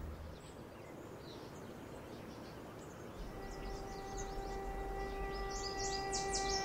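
Birds chirping, faint at first and growing louder and busier. A single held violin note fades in about three seconds in and swells underneath.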